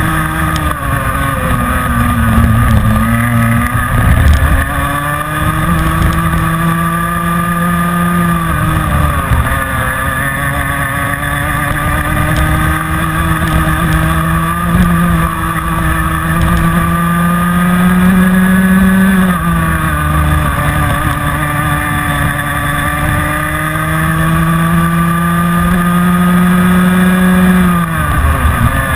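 Rotax Mini Max kart's 125cc two-stroke engine at racing speed: its note climbs steadily along each straight, then falls away sharply when the throttle comes off for a corner, about three times.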